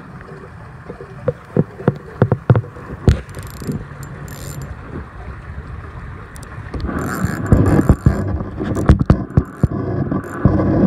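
Fishing reel being cranked to bring in a hooked catfish, with scattered knocks and clicks from handling the rod. The handling noise grows louder and busier about seven seconds in.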